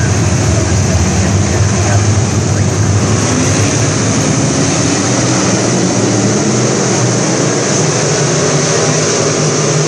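A field of southern sport modified dirt-track race cars racing at speed, their V8 engines running hard together. The deep engine note is strongest for the first three seconds, then thins as the pack moves away around the track.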